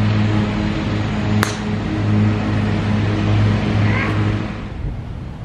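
A golf club striking a ball off the tee with a single sharp crack about a second and a half in, over a steady engine hum that dies away near the end.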